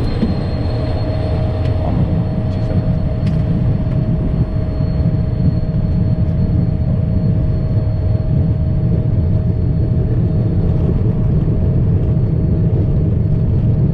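Phenom 100 twin-jet cockpit noise on the takeoff roll: a loud, steady low rumble from the engines and runway, with a steady high whine that comes in about half a second in.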